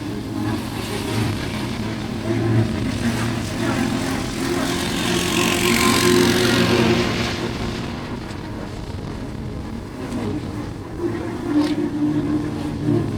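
Street traffic: vehicle engines running, with one vehicle passing close and growing loudest about six seconds in before fading.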